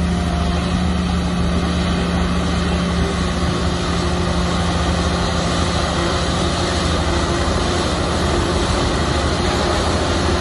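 Heavy diesel earthmoving machinery running steadily under load, a deep even engine drone with a grinding mechanical noise over it.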